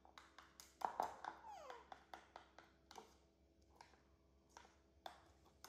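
Metal spoon clinking against a ceramic bowl while egg and flour are stirred: a run of light, irregular taps. About a second in comes one short falling squeal.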